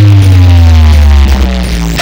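Loud electronic dance music blasting from a sound-service rig of seven speaker boxes, with a heavy sustained bass and a synth tone sliding steadily down in pitch.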